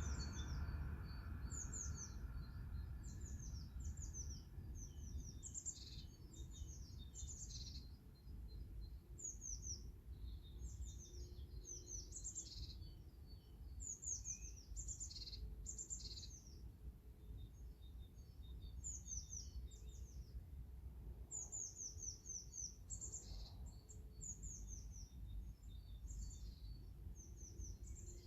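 Small birds chirping: short, high notes that slide downward, repeated in quick runs of two to five, over a steady low rumble.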